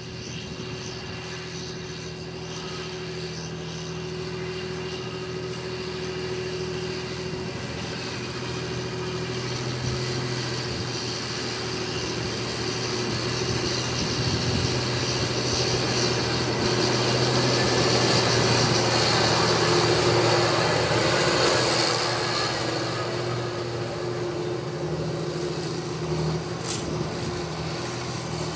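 John Deere tractor's six-cylinder diesel engine running steadily under load as it pulls a cultivator through the soil, growing louder as the tractor comes close, peaking about two thirds of the way through, then easing off.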